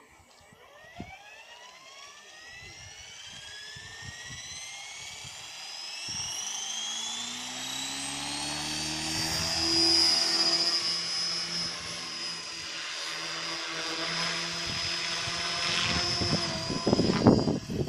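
Gaui X5 electric RC helicopter spooling up: the motor and gear whine rises steadily in pitch for about ten seconds, then holds steady as the main rotor adds a low whirring beat. Near the end it turns suddenly louder and rougher as the helicopter flies.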